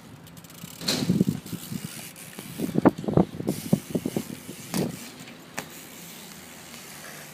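A run of dull thuds and knocks: a burst about a second in, a quicker cluster of knocks around three to four seconds in, and one more near five seconds.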